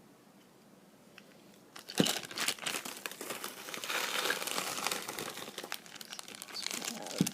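Packaging crinkling and crackling as it is unwrapped by hand, starting about two seconds in after a faint quiet stretch, with a sharp click as it starts and another near the end.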